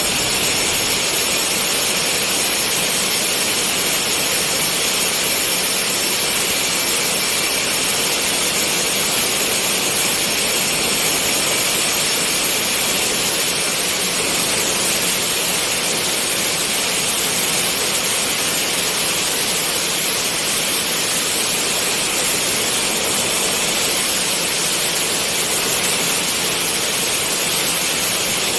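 Angle grinder running steadily with a high whine, cutting a 4 mm groove into the kitchen countertop.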